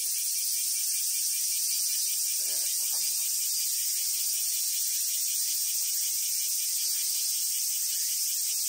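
Steady high-pitched insect chorus, a continuous shrill buzzing with a fine rapid flutter, holding an even level. A faint distant voice is heard briefly a few seconds in.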